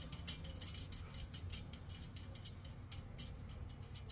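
Homemade box fan with a bicycle rim for blades coasting to a stop on a low setting that doesn't drive it: faint, irregular ticking over a steady low hum.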